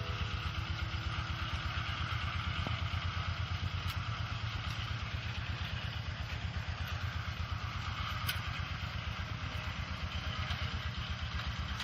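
Siam Kubota NC 131 single-cylinder diesel engine running steadily with a rapid, even chugging beat.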